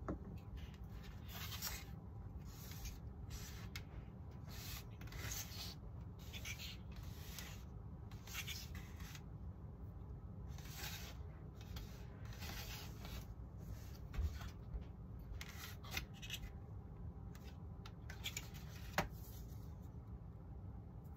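Hand sanding of wooden wing sheeting: repeated rasping strokes of a sanding block, about one a second, pausing briefly twice, with a single sharp click near the end.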